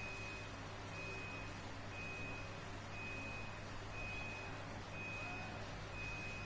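A high electronic beep repeating about once a second, each beep lasting just over half a second, over a steady low hum.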